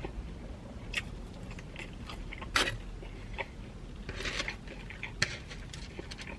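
Close-miked chewing and biting of pepperoni pizza, with sharp crunches of crust and wet mouth clicks. The loudest crunch comes about two and a half seconds in, and a longer run of crunching follows around four seconds in.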